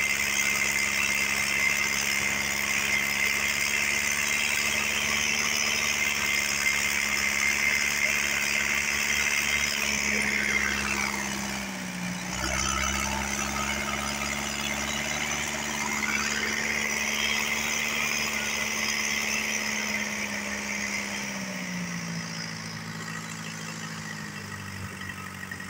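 A fishing launch's engine running steadily under way at sea, over a steady hiss. Its note dips briefly about halfway through, then drops lower and quieter near the end as the boat eases off.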